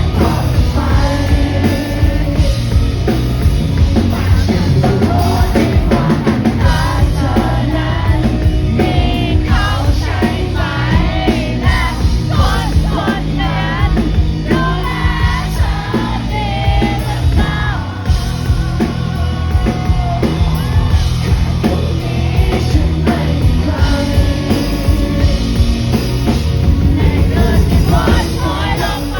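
Live rock band performing a song with a singer, drum kit, bass and guitars, loud and unbroken, as heard in a concert crowd recording.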